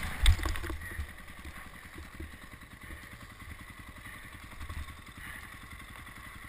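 KTM 400 dirt bike's single-cylinder engine coming off the throttle within the first second and then running at low revs with a low, even putter.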